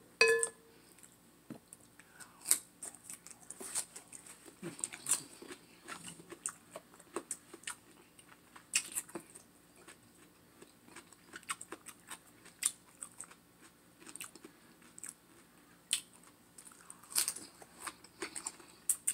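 Close-miked eating: chewing and crunching with many small wet mouth clicks as pieces of food dipped in sauce are eaten. Just after the start there is a short ringing clink, like a glass bowl being struck.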